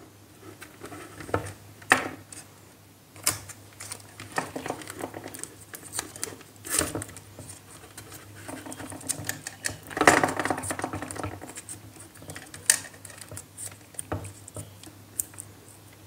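Hands twisting a bare wire end onto a doorbell lead and wrapping insulating tape around the joint: scattered small clicks and crinkling rustles of the tape, loudest around ten seconds in.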